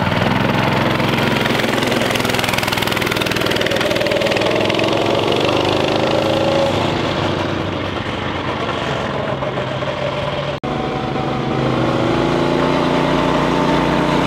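Predator 212 single-cylinder four-stroke engine on a wooden go-kart running under throttle as the kart drives off, its pitch rising as it revs up. There is a short dropout about ten and a half seconds in, then the engine revs up again.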